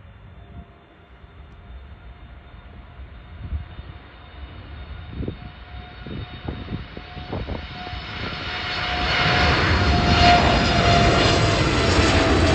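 Boeing 787 Dreamliner's jet engines at takeoff power, a steady roar with a thin whine that grows gradually louder as the airliner rolls and lifts off, at its loudest from about nine seconds in. A few low thumps come in the middle.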